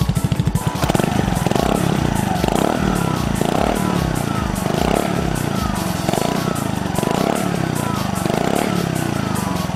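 Suzuki Address V125S scooter's 124 cc single-cylinder four-stroke engine, exhausting through an aftermarket slip-on muffler with a replacement aftermarket baffle fitted. It idles with an even pulse, then from about a second in is revved in quick throttle blips, roughly one a second.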